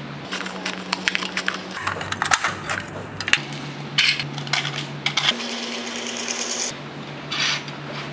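Thin aluminium drink cans being cut with scissors and pierced and worked with metal skewers: a quick run of crinkling, clicking and scraping metal noises, with a longer scratchy stretch a little past the middle.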